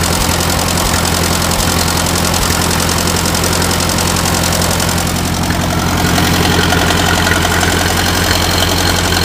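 International Harvester 350 Utility tractor's four-cylinder gasoline engine idling steadily, its tone shifting slightly about six seconds in. By the owner's ear it runs with no unusual valve noise and no noticeable knock.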